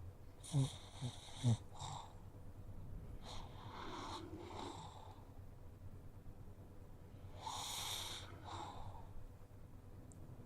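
Pug snoring gently in its sleep: three slow, soft breaths a few seconds apart. The first has three short low rattles in it.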